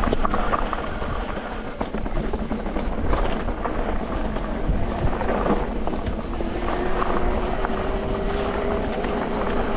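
Electric mountain bike rolling over a dirt trail: tyres on the ground and the bike rattling, with scattered small knocks. From about six seconds in, the steady whine of the e-bike's motor joins in.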